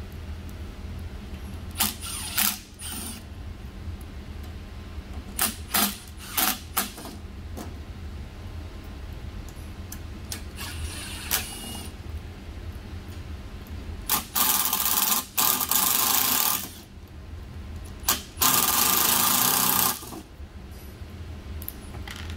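Cordless drill-driver backing screws out of a metal cover panel. It runs in several short bursts, then in two longer runs of about two seconds each in the second half.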